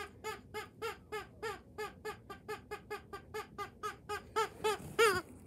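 Squeaky rubber chicken dog toy squeezed by hand over and over, about three or four short squeaks a second, each dipping in pitch, with the loudest squeak near the end.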